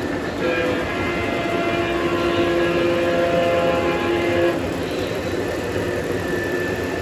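O scale model trains running, a steady rumble of wheels and motors on the track, with a model diesel locomotive's electronic horn sounding one long chord that stops about four and a half seconds in.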